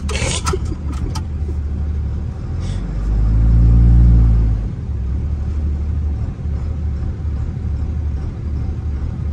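Pickup truck engine heard from inside the cab, running steadily at low speed, with a few clicks in the first second. About three seconds in, the engine swells louder as it is given throttle, rising and falling in pitch over a second and a half, then settles back.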